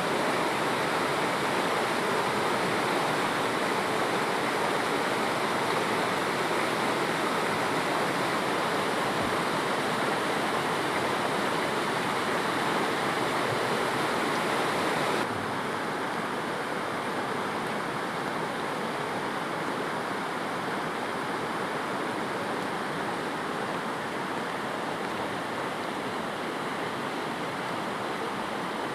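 Floodwater rushing in a swollen river: a steady, dense rush of water that drops suddenly to a somewhat lower level about halfway through.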